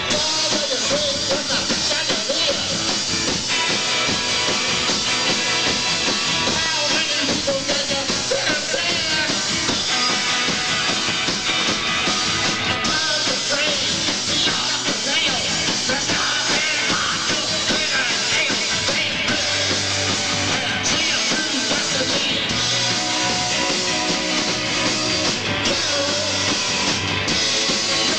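Rock band playing live, a loud, steady punk-tinged rock song.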